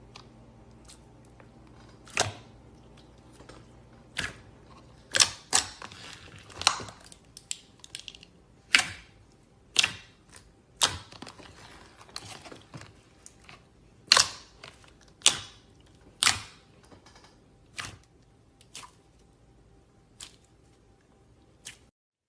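Slime being squeezed and poked, giving about twenty sharp, irregular clicks and pops as air pockets burst.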